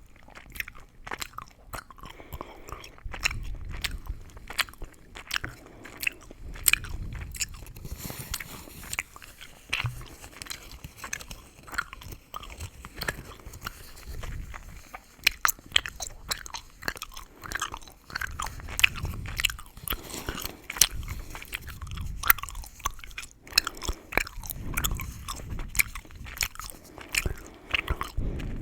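Gum being chewed in the mouth, with many sharp, irregular crackles and clicks and soft chewing thuds.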